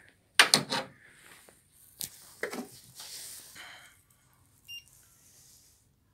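Handling noise with a loud rustle and knock near the start and softer clicks and rustling after it. A little before the end comes one short high beep from a handheld infrared thermometer taking a reading.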